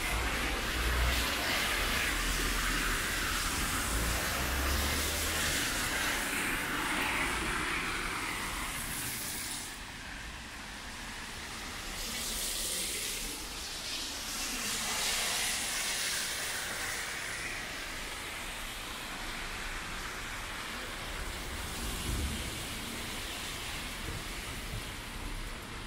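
Traffic on a rain-wet city street: tyres hissing on the wet road as vehicles pass, swelling and fading several times, over a steady hiss of rain, with a low engine rumble in the first few seconds.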